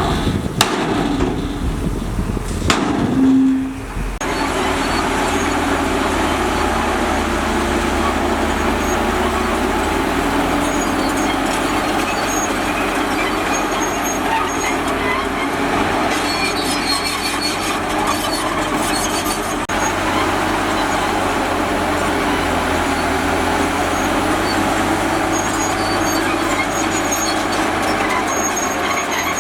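Heavy earthmoving machinery running. A few knocks sound in the first four seconds, then a steady engine drone carries on.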